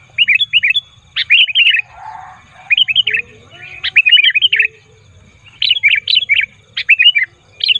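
Sooty-headed bulbul singing a loud, chattering song in short bursts of three to six quick, bubbly notes, repeated about once a second with brief pauses between.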